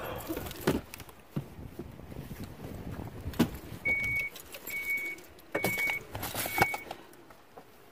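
A van's warning chime dinging four times, evenly about a second apart, amid clicks and knocks from settling into the vehicle.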